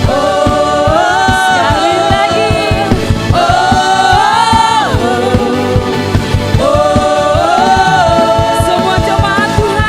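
Live worship song: several voices singing together in long held phrases over a band with a steady drum beat.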